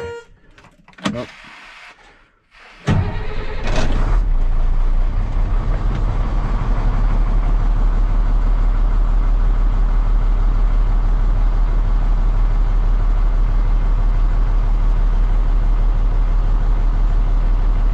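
International DT466E inline-six diesel catching about three seconds in and settling into a steady idle. This is its first start after a new gear-driven Bendix Tru-Flo 550 air compressor was fitted.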